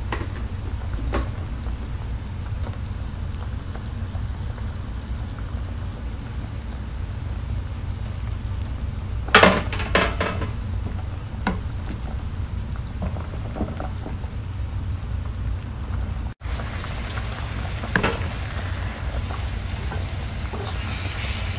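Cooking oil sizzling steadily in a frying pan of chopped fresh coriander and ground spices. A few short sharp clicks come about halfway through and again near the end.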